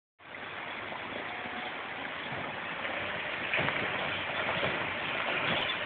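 A four-wheel-drive vehicle crawling down a rocky dirt track, its engine and tyres on loose stone getting gradually louder as it comes closer, with short crackles from about halfway through.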